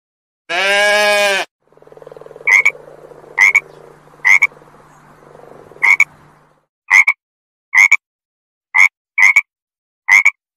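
A frog croaking about nine times in short, sharp calls roughly a second apart, with a faint low hum under the first few. They follow a single bleat about half a second in.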